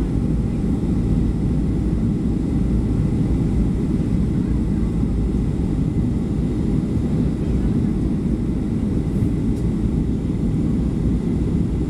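Steady low roar inside the passenger cabin of a Boeing 737 during descent: its CFM56 turbofan engines and the airflow over the fuselage, level and unchanging.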